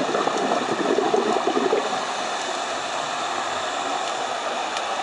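Underwater noise picked up through a camera housing: close, fast bubbling for the first couple of seconds, then a steady rushing hiss of water as the camera moves up.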